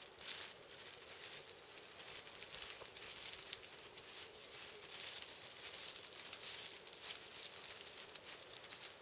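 A wild turkey's footsteps crunching and rustling through dry leaf litter, in irregular crackles.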